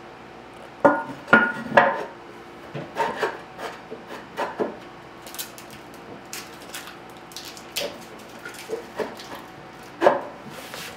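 Porcelain tank lid of a WaterRidge toilet being set down on the tank and shifted into place. Three sharp, ringing ceramic clinks come about a second in, then lighter knocks and scraping, and another clink near the end.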